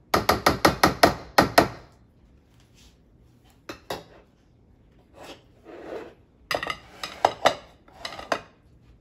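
A spatula tapped quickly against the edge of a glass baking dish, about seven sharp knocks in under two seconds. After that come scattered knocks and clatter as dishes are set down and moved on a countertop.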